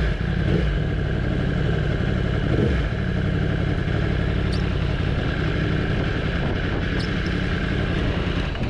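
Yamaha sport bike's engine running steadily at low revs in first gear as the bike creeps along and rolls to a stop.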